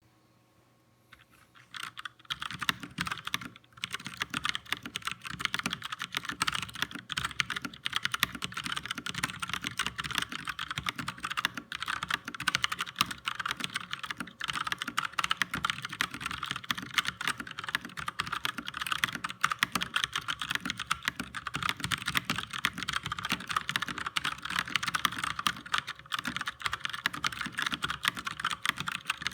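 Fast continuous typing, around 85 words a minute, on a DareU 87-key mechanical keyboard with Cherry MX White switches and stock ABS keycaps: a dense, uneven stream of key clicks. It starts about two seconds in.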